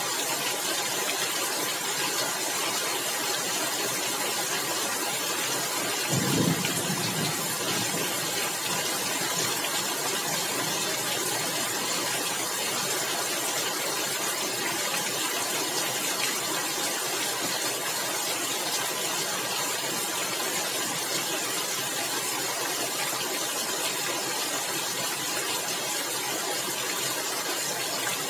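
Steady rain falling on roof tiles, an even, dense hiss and patter, with one brief low rumble about six seconds in.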